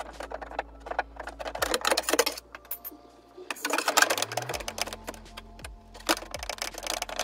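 Rapid light tapping and clicking on a car door panel from paintless dent repair tools working the dent, in several quick bursts with short pauses between them.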